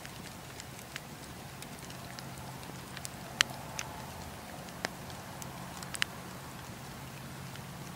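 Wood campfire burning: a steady low rush of flames under scattered sharp crackles and pops from the burning logs, the loudest pop about three and a half seconds in and another near six seconds.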